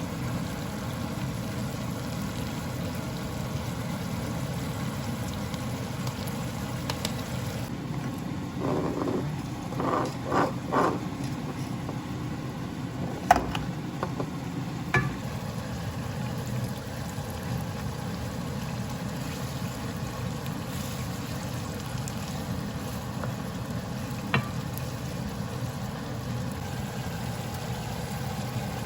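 Food sizzling in a frying pan, a steady hiss, with a few short stirring scrapes and several sharp utensil clicks.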